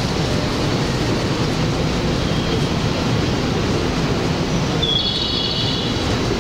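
Electric train running with a steady low rumble, with brief high-pitched squeals about two and a half seconds in and again from about five seconds in.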